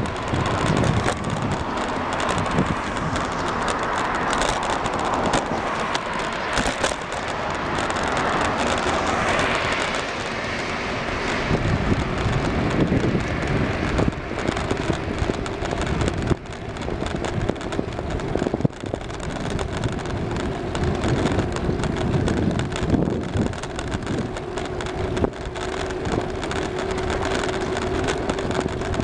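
Continuous rushing noise of a bicycle ride along an asphalt street on a Brompton folding bicycle: wind on the microphone mixed with tyre and road noise. The rush swells for the first ten seconds or so, then settles.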